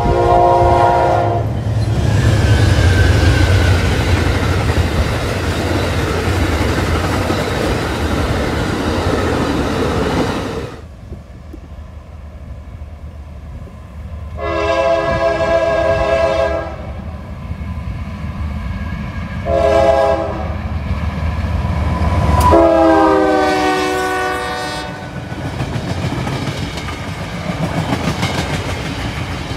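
Amtrak P42DC locomotive horn ending about a second in, then the passenger train passing at speed with loud, steady rolling noise that cuts off near the middle. Then a CSX freight locomotive horn sounds three blasts, long, short and long, the last falling in pitch as the locomotive passes, followed by open hopper cars rolling by with clickety-clack from the wheels.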